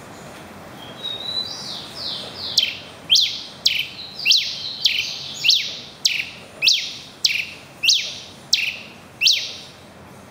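Red pileated finch singing: a few softer, level notes, then a run of about a dozen loud, sharp whistles, each sliding steeply down in pitch, repeated a little under twice a second.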